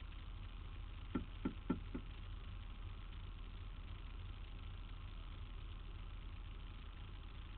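Steady low rumble of street traffic, with four quick knocks about a second in, roughly a quarter second apart.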